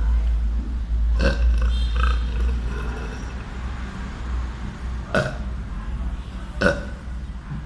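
A boy burping: three short burps, about a second in, around five seconds in, and a second and a half after that, over a steady low hum.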